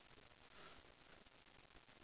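Near silence: faint room tone, with one brief soft hiss about half a second in.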